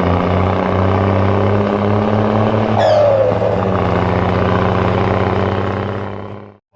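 Truck engine sound, a steady drone with a brief falling tone about three seconds in, fading out near the end.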